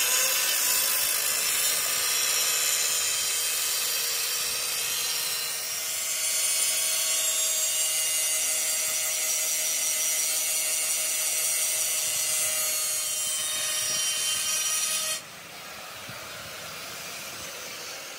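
A power tool working on the metal of the axle, a steady high hiss with a faint whine that stops suddenly about fifteen seconds in.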